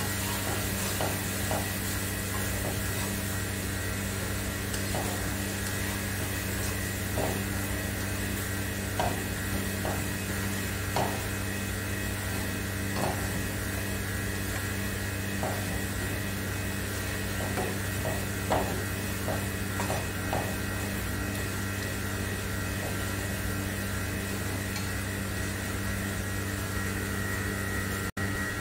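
A spatula stirring through tomatoes and onions in a nonstick frying pan, with light taps and scrapes against the pan every second or two that stop about twenty seconds in. Under it runs a steady hum with a high hiss.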